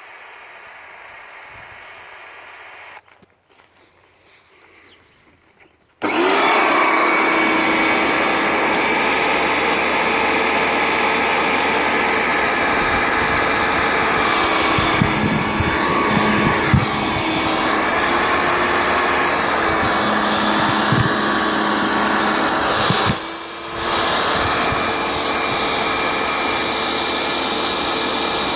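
A quieter steady sound for the first three seconds, then about six seconds in an electric pressure washer's motor and pump start and run continuously, dipping briefly about twenty-three seconds in. It keeps running instead of switching off, with very little pressure: its cut-out switch is not working.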